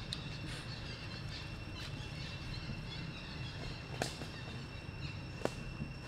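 Outdoor background noise: a steady low rumble under a thin, steady high-pitched tone, with two sharp clicks, one about four seconds in and one about five and a half seconds in.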